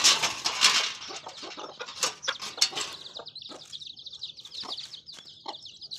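A flock of local chickens: a burst of wing flapping in the first second, then scattered clucks, with a continuous high, wavering chirping from about three seconds in.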